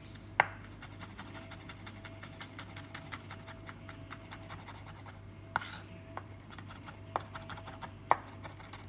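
Chef's knife mincing garlic on a wooden cutting board: quick, light taps of the blade on the board, with a few sharper knocks, the loudest about half a second in and another near the end.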